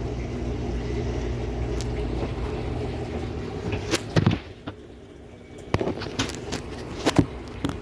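Washing machine running with a steady hum that cuts off about four seconds in. A few sharp clicks and knocks follow.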